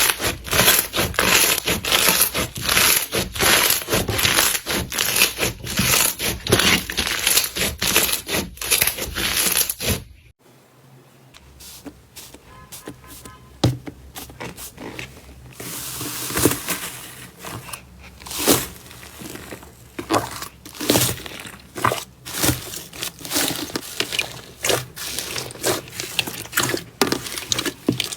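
Hands squeezing and pressing slime, making dense, rapid crackling clicks. About ten seconds in it cuts to another slime clip with quieter, sparser clicks and pops.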